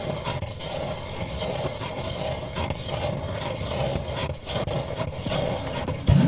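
Ice auger cutting through lake ice: a steady grinding scrape.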